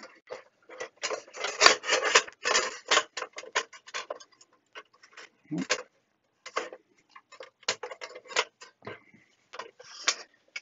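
Metal chassis and cover plates of a Fluke 8810A bench multimeter being handled and slid about on a workbench: a quick, irregular run of clicks, knocks and scrapes, thinning out after about three seconds.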